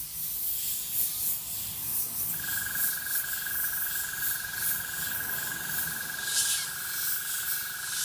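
Airbrush spraying paint, its hiss swelling and fading in short pulses as the trigger is worked. A steady high tone comes in about two seconds in and carries on under the hiss.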